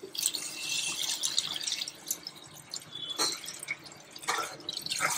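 Coconut milk poured from a steel bowl into a stainless steel pot of masala, a steady splashing pour that is strongest in the first two seconds. Later a few sharp clinks of a slotted ladle against the pot as the milk is stirred in.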